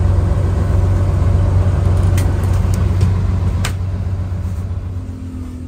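Bus diesel engine of a Mercedes-Benz OH 1521 idling with a steady low rumble while the bus stands waiting for passengers. There are a couple of light clicks, and the sound fades away over the last two seconds.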